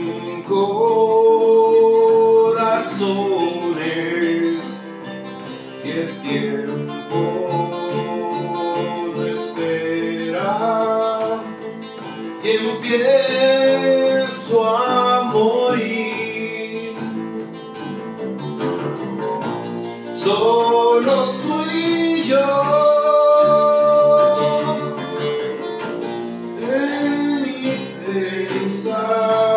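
A male singer sings an unplugged rock ballad, accompanied by a nylon-string classical guitar and an acoustic bass guitar.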